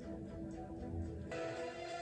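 Background music with sustained notes; a little over a second in, a brighter, fuller section comes in abruptly.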